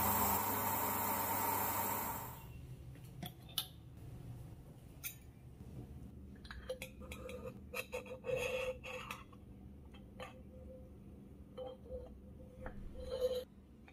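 Steam hissing steadily from a steel puttu steamer, cutting off about two seconds in. Then the steel puttu tube clinks, taps and scrapes against a ceramic plate as the steamed puttu is pushed out, with a louder clink near the end.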